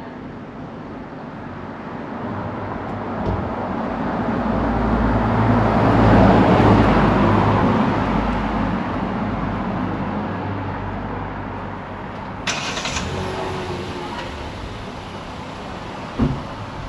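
A car drives past on the street, its engine hum and tyre noise getting louder, peaking about halfway, then fading away. A short knock follows near the end.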